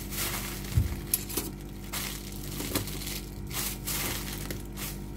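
A plastic bag of corn flakes crinkling and crackling under pressing hands as the air is squeezed out of it, readying the flakes for crushing. A soft thump about a second in.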